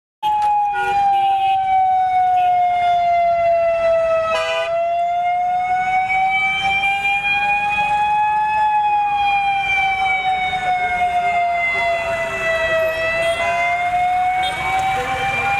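A siren wailing slowly, its pitch falling and rising in a cycle of about eight seconds. It starts abruptly, a short click sounds about four seconds in, and background noise grows louder near the end.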